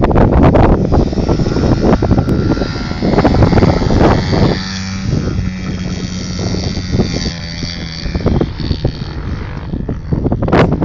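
Small dirt bike engine running, holding a steady note for a few seconds in the middle, under heavy wind buffeting on the microphone.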